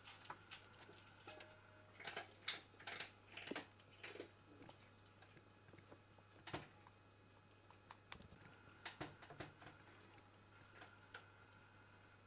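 A young Eurasian red squirrel eating from its paws in a porcelain bowl: faint, irregular gnawing clicks and small scrapes, in short clusters.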